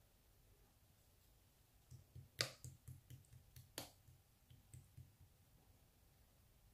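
Marbled slime being squished by hand, giving a run of about a dozen faint sharp clicks and pops over some three seconds, starting about two seconds in.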